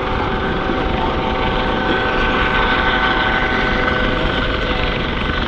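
Coast Guard MH-65 Dolphin helicopter hovering: steady turbine and rotor noise with a high whine that grows louder in the middle, then eases.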